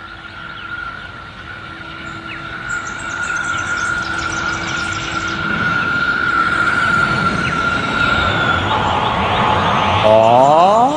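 Anime sound effect of a craft approaching through the sky: a steady whine over a rushing noise that grows louder, turning into a loud rising sweep of pitched tones about ten seconds in.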